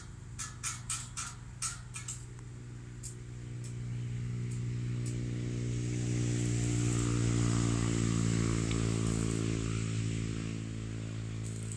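A motor vehicle passes on the road, its noise swelling to a peak midway and fading, over a steady low engine hum. A quick run of light clicks comes in the first two seconds.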